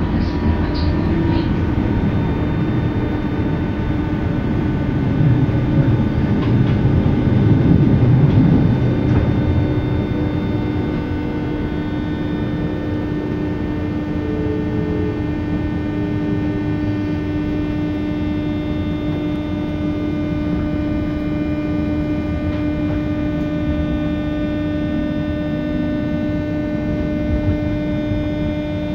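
Inside a JR West 201 series electric train: running noise with a whine that falls in pitch during the first third as the train slows, then several steady electrical humming tones.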